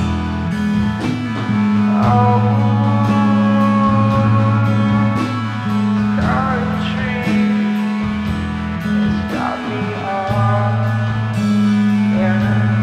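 Rock band playing live: guitar and bass hold long chords over a steady drum beat, with sliding melodic lines rising over them every few seconds.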